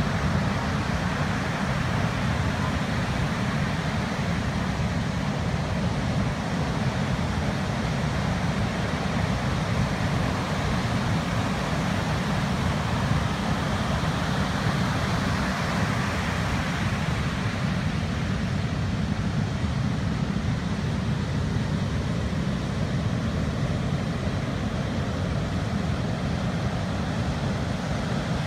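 Steady rushing noise of strong typhoon wind and heavy surf, heavy in the low end, with no single event standing out; the high hiss eases slightly a little past the middle.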